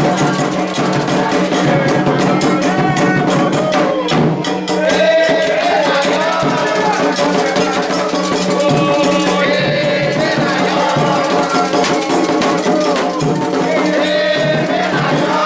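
Afro-Brazilian religious song for Yemanjá: voices chanting over shaken rattles and percussion keeping a steady beat.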